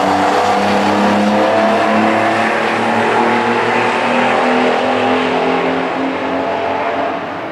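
Porsche sports-car engine running hard at high revs on a racetrack, loud and sustained, its pitch creeping slowly upward and easing off slightly near the end.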